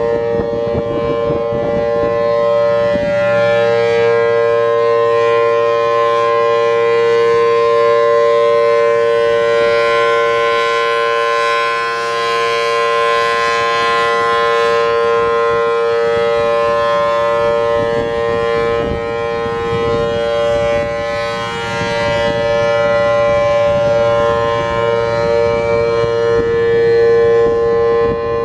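Federal Signal Thunderbolt 1000T siren with a 4/5-port chopper sounding a steady full-alert tone: two held pitches a major third apart, very loud, with a low hum underneath. The loudness swells and dips gently while the pitch holds steady.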